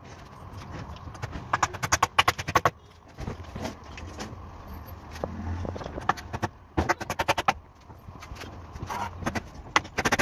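Claw hammer nailing a timber board, in quick runs of sharp blows: one run about a second and a half in, another around seven seconds, and a third near the end.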